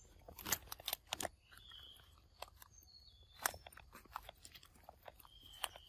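Footsteps crunching on dry leaf litter: irregular sharp crunches and snaps, several close together in the first second or so and then spaced out, with a few faint high chirps between them.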